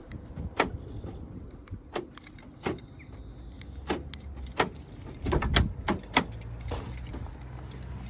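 A scatter of sharp clicks and knocks from handling car keys and the car's doors, about a dozen in all, with a cluster a little past the middle, over a steady low hum.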